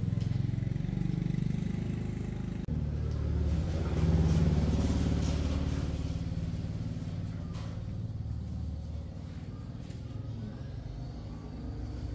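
A vehicle engine running steadily, getting louder about four seconds in and then easing off.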